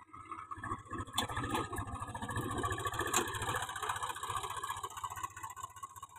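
Swaraj 735 tractor's diesel engine running steadily as it pulls a groundnut seed drill through tilled soil, with a couple of sharp clicks about one and three seconds in.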